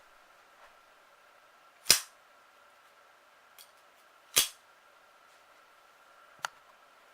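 Two loud, sharp bangs about two and a half seconds apart, then a shorter, lighter click near the end, over a faint steady hum.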